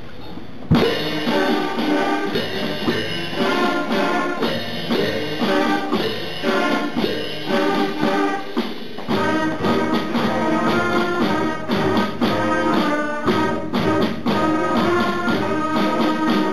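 Children's school band of flutes, clarinets and other instruments playing a piece. The whole band comes in together with a sudden loud first note under a second in.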